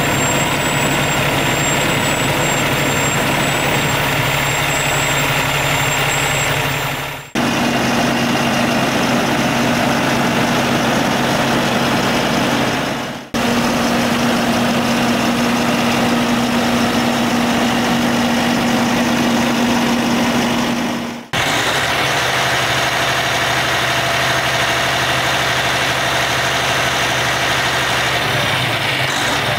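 Cummins ISX15 inline-six diesel in a Kenworth T660 idling steadily, with three brief dropouts where the steady hum changes in pitch.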